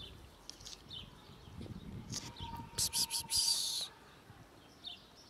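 Small birds chirping in the background. About three seconds in there is a short, loud rustling hiss lasting about a second.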